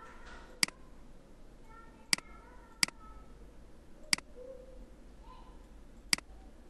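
Five sharp single computer mouse clicks, spaced unevenly over several seconds, as shape copies are selected and rotated in a drawing program. Faint pitched sounds sit in the background.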